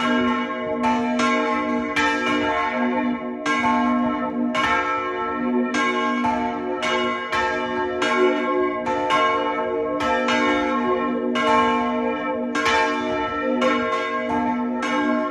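Several church bells of Somero church ringing together, their strokes overlapping in a steady, irregular peal of about two or three strokes a second, each tone ringing on under the next.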